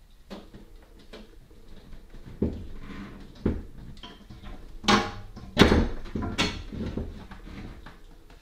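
A heavy 50-pound mirror being lifted onto wall hooks, its frame bumping and knocking against the wall in a series of irregular knocks. The loudest knock comes a little past halfway.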